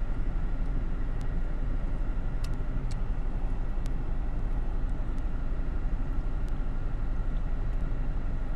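Steady low rumble and rush inside a car cabin, typical of the car's engine idling, with a few faint clicks.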